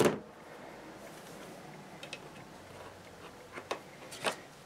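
Wire strippers clicking sharply once as they bite through a wire's insulation, then a few light clicks and taps of the tool being handled and set down on a cardboard-covered bench.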